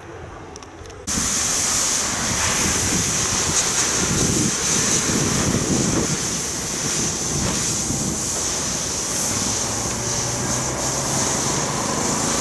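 Steady rushing noise of wind on the microphone, with uneven low buffeting, starting abruptly about a second in.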